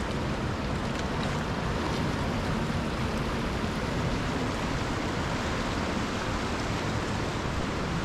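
Fast-flowing river water rushing steadily.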